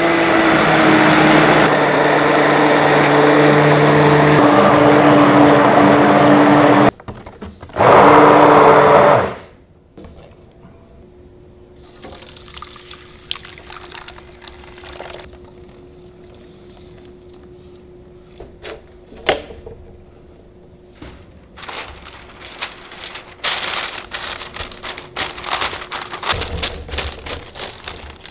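Loud, steady whirring with a low hum for about nine seconds, cutting out briefly around seven seconds. Then it turns quiet, with faint scattered clicks while thick pecan pie filling is poured slowly through a metal mesh sieve. Near the end, paper crinkles and rustles as it is pressed into a round pan.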